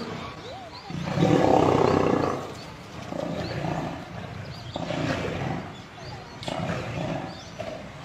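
Lions growling in a fight as lionesses attack a pinned-down male lion; deep, rough growls come in repeated bursts, the loudest about a second in.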